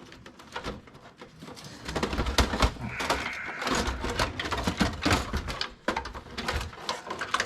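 Parts being worked loose from a desktop computer case: a dense run of metal clanks, knocks and rattles that grows busier about two seconds in, with a short high squeal about three seconds in.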